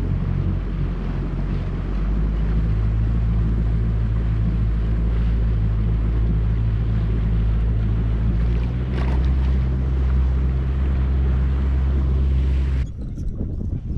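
A bow-mounted electric trolling motor running with a steady low hum. Its pitch shifts in steps twice, as the speed setting changes, and it stops abruptly near the end.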